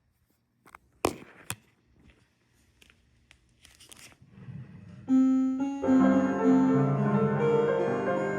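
A few faint clicks and two sharp knocks, then about five seconds in, piano music begins with sustained chords and a slow melody.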